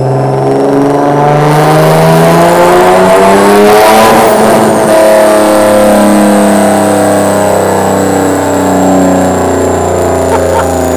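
Single-turbo Nissan 370Z's 3.7-litre V6 running on a chassis dyno during tuning. The revs climb steadily for about four seconds, then slowly ease back down, with a thin high whine above the engine.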